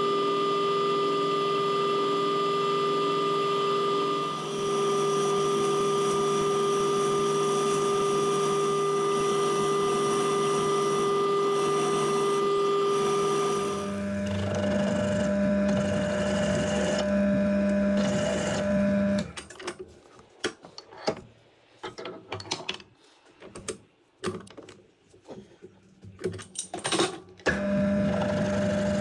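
Milling machine spindle running steadily while drilling a cross hole through a turned steel pin; its pitch changes partway through. Later the machine goes quiet for several seconds, with scattered clicks and knocks, then runs again near the end.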